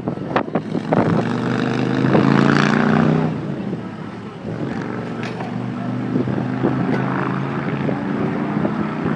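A vehicle engine running steadily, getting louder for about a second between 2 and 3 seconds in, then settling back.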